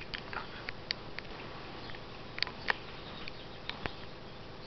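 Steady background hiss with a scattered handful of short, faint clicks and ticks. The sharpest comes about two and a half seconds in.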